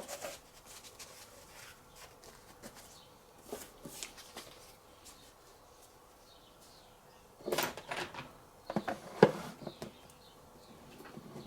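Handling noises of packaging being moved on a table: scattered faint clicks and rustles, with a louder run of sharp clicks and rustling about two-thirds of the way through.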